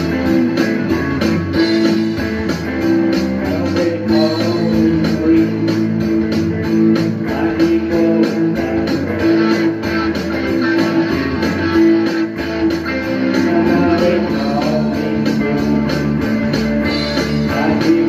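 Electric guitar strummed through an amplifier, with an even, steady rhythm and sustained chords ringing throughout.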